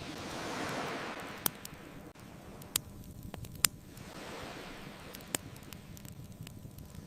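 Ocean waves washing onto a beach, one swelling and falling away in the first two seconds and the next building from about four seconds in, with a bonfire crackling over it in four sharp pops.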